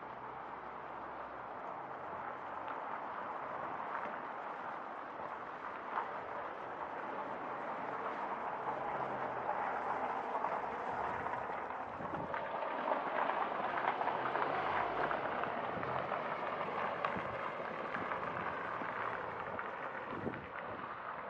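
Street ambience heard on foot: a steady hum of city traffic that swells through the middle, with faint footsteps on the pavement.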